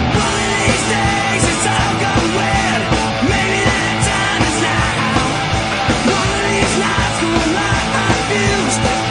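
Loud punk rock song playing, with distorted guitars, drums and a shouted vocal.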